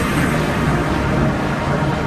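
A loud, steady rushing noise with a low hum beneath it: a cartoon warp or portal sound effect.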